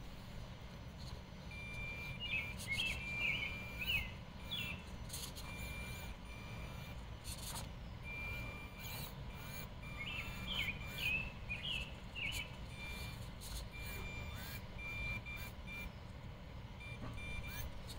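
Small birds chirping in two bursts of quick, falling and rising notes, over a long run of short, evenly spaced high beeps, with a low rumble underneath.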